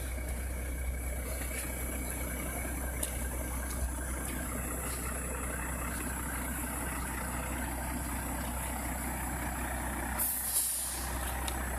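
Heavy truck's engine running steadily, with a short hiss near the end.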